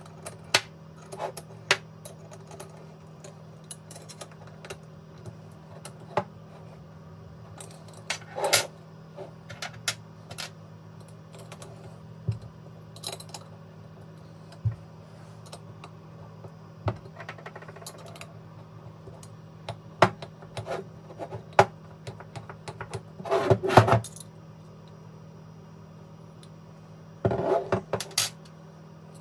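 A spanner and small steel fittings clicking and clinking against an aluminium individual throttle body and the workbench as it is reassembled: scattered sharp taps, with louder runs of rattling about two-thirds of the way through and near the end, over a steady low hum.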